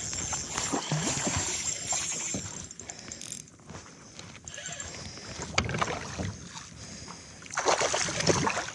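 Water splashing and knocking against a fishing kayak as a hooked bass is brought alongside and landed, in several bouts, loudest at the start and again near the end.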